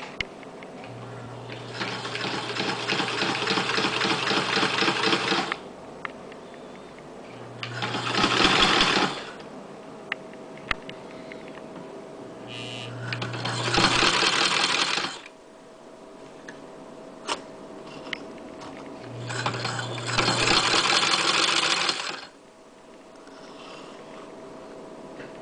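Singer sewing machine running in four separate bursts of a few seconds each, the needle mechanism stitching in a fast, even rhythm over a steady low hum. Between the runs it falls quiet, with a few small clicks.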